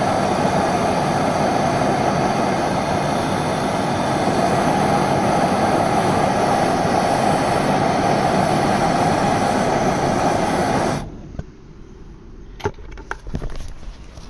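Gas torch (burner) flame burning with a steady roar that cuts off suddenly about eleven seconds in, followed by a few light clicks and knocks.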